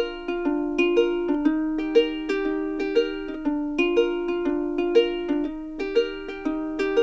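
Background music: a light plucked-string tune of short, quickly fading notes with a steady beat, accented about once a second.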